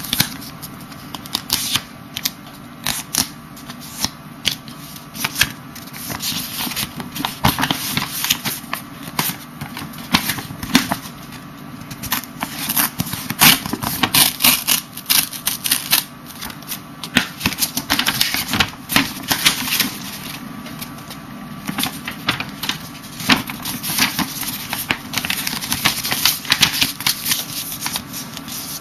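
A sheet of paper being folded and creased by hand: irregular rustling and sharp crackles of the paper, with longer swishes now and then.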